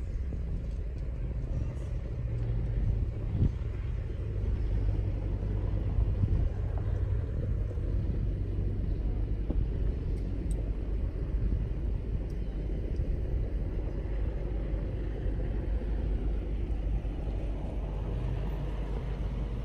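Off-road vehicle driving, with a steady low engine and road rumble.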